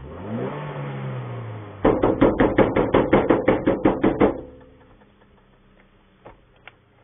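A vehicle engine revs up and holds, then the vehicle's horn is hooted in a quick string of short blasts, about six a second for two and a half seconds, as an elephant approaches. Two faint clicks follow near the end.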